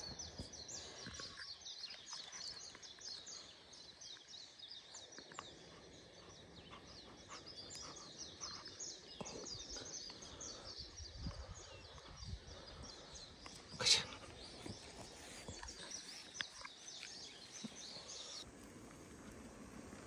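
Small birds chirping rapidly and continuously in forest, high-pitched, with one brief sharp sound about fourteen seconds in standing out above them. The chirping cuts off abruptly shortly before the end.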